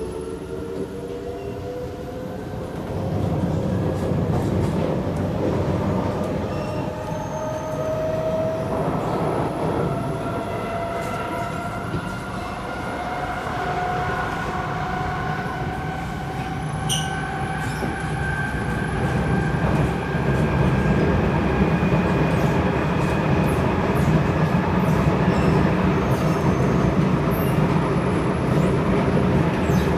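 Kawasaki C751B metro train's traction motors whining as the train accelerates, several tones rising steadily in pitch over the growing rumble of wheels on rail, heard from inside the car. A single sharp click comes about halfway through.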